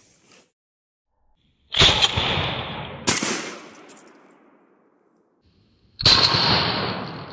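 Two blasts from a Saiga 12 semi-automatic 12-gauge shotgun, about four seconds apart, each ringing out and dying away over a couple of seconds. A separate sharp crack comes a little over a second after the first blast.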